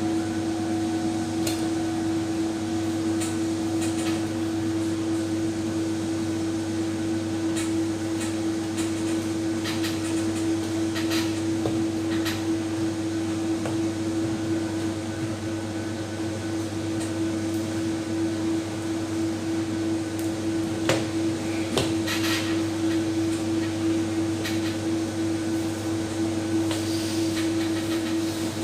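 A steady mechanical hum with scattered light clicks and knocks over it; the sharpest knock comes about 21 seconds in.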